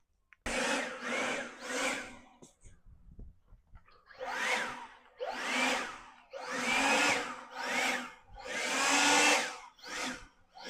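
Skil 40-volt cordless leaf blower fired in about eight short blasts, the fan's whine rising as each one spins up and falling away as it is let off.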